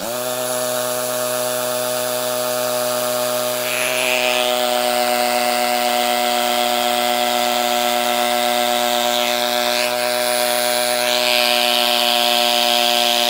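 Makita 18V cordless hammer drill boring into a concrete block with a small masonry bit, the one supplied with a box of Tapcon screws. The motor whines steadily under a grinding noise that grows louder about four seconds in and again near the end. Progress is slow, about half an inch deep.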